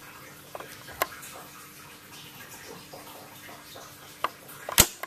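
A few sharp clicks and taps, the loudest near the end, over a faint steady hum: test-meter probes and hands working at the water heater's electrical terminals while checking for voltage.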